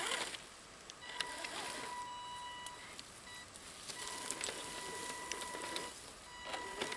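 Electric motor of an Axial SCX10 radio-controlled crawler whining at a steady pitch in two spells of about two seconds each as the truck creeps slowly forward, with a few faint ticks.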